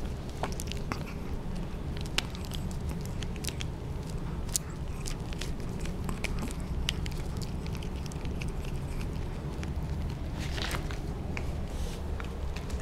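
Chihuahua gnawing a long chew stick, its teeth scraping and clicking on it in irregular sharp clicks.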